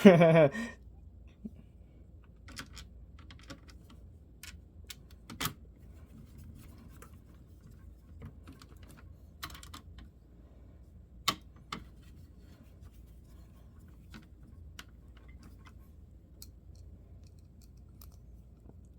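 Scattered small clicks and taps from handling laptop parts, plastic and small metal pieces knocking together at irregular intervals, with a couple of louder clicks.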